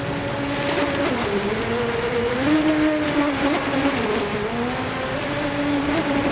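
Remote-control jet ski's dual brushless electric motors and jet drive running at speed, a steady whine whose pitch dips and rises as it carves turns, over a hiss of water spray.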